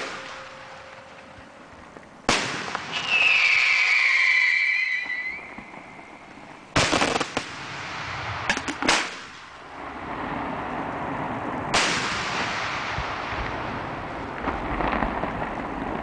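Aerial fireworks bombs fired from mortar tubes: about five sharp, loud bangs at uneven intervals, each trailing off in a rolling echo, with a whistle a few seconds in that falls slightly in pitch.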